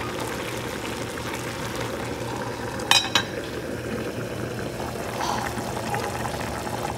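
Pots of food boiling on a stovetop, bubbling steadily; the pot of rice is cooking in boiling water. About three seconds in come two sharp clinks as a pot lid is handled.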